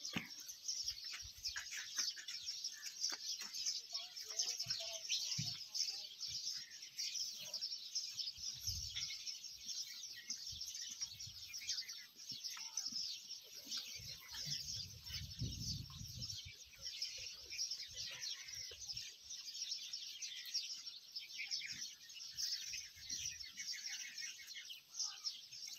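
Small birds chirping and twittering continuously in a dense chorus, with a brief low rumble about halfway through.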